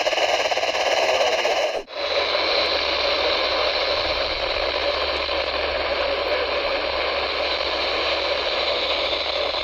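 Steady radio static hiss from a weather radio receiver, with a sharp dropout just under two seconds in, after which the hiss returns with a low hum under it.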